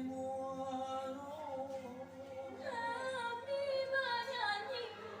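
Music for the Indang dance: a woman's singing voice holding long, wavering notes, with a higher, brighter vocal line coming in about halfway.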